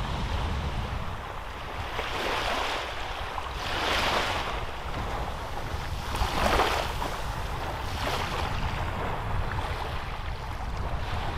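Small waves washing up onto a sandy beach and drawing back, several surges in turn, the loudest about four and six and a half seconds in. A steady low rumble of wind on the microphone lies under them.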